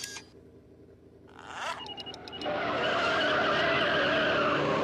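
A sharp click, then the DeLorean's tyres squealing in a burnout with the engine revving. The sound rises about a second and a half in and runs loud and steady from about halfway.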